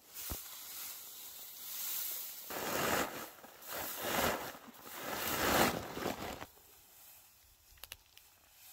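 Dry hay rustling and crackling as handfuls are pulled from a haystack by hand and pushed into a paper sack, in three loud bursts in the middle, then quieter with a few light ticks near the end.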